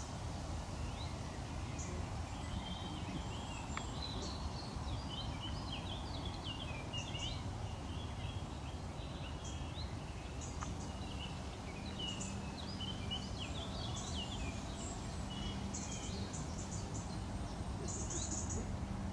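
Small birds chirping and singing in many short, high, quick notes over a steady low background rumble; a steady low hum comes in about halfway through.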